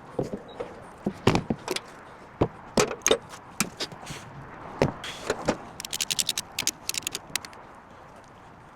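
Irregular sharp clicks, knocks and rattles of handled metal gear, with a quick run of rapid clicks about six seconds in.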